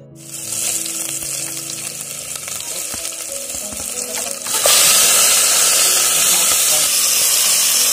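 Food sizzling in hot oil in a pan. The sizzle starts suddenly and jumps louder about four and a half seconds in.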